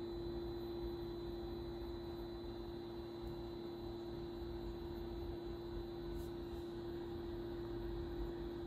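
A steady electrical hum, one even mid-pitched tone over a faint hiss.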